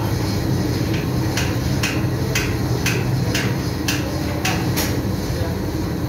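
Steady low drone of ship engine-room machinery, with a run of light sharp clicks about two a second through the middle.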